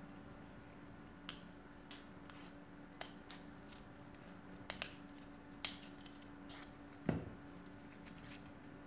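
Plastic blister pack of a CR2032 coin-cell battery being cut and peeled open: a scattering of sharp plastic clicks and crackles at uneven intervals, the loudest about seven seconds in.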